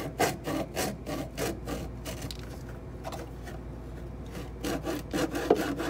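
Refrigerator drain tube being cut by hand, a quick run of rasping back-and-forth strokes, about three or four a second, that eases off in the middle and picks up again near the end.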